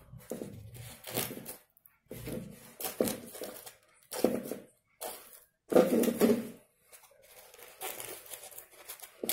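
Dry corn husk strips rustling and crinkling in irregular bursts as they are handled and stuck onto a paper cone, with some tearing sounds.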